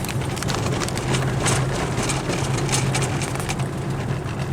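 Car driving along a rough dirt road: a steady engine and road drone, with frequent short clicks and knocks as it jolts over the bumps.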